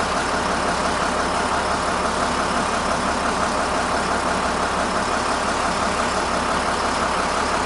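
Beckett oil burner running steadily: an even rushing hum from the burner motor, fan and flame, with no knocking or change in pitch.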